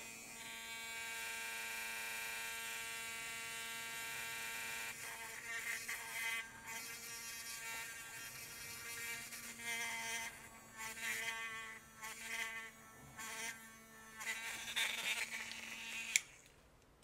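Small hand-held rotary tool with a 1.0 mm drill bit whining as it drills a hole through a small plastic toy part. It runs steadily for about five seconds, then in short bursts, and a sharp click comes near the end as it stops.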